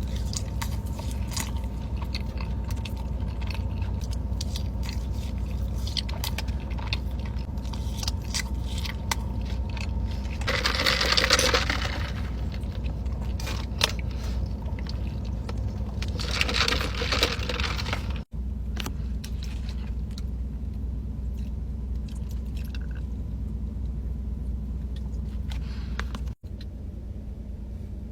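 Close-miked eating: crunchy bites and chewing with many small clicks, over a steady low hum. Two louder, noisier crunching or rustling spells come in the middle, and the sound cuts out abruptly twice.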